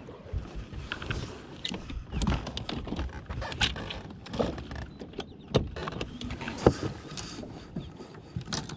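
Irregular clicks, clunks and knocks of a bow-mounted trolling motor and its mount being handled on a bass boat's deck, with the two loudest knocks in the second half.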